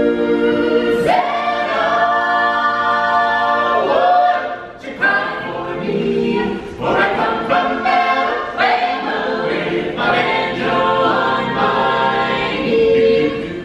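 Choir singing a cappella in harmony, holding long chords and then moving through shorter notes.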